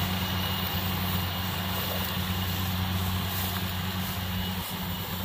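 Kubota DC-70 rice combine harvester working through standing rice, its diesel engine and machinery running at a steady, unbroken drone.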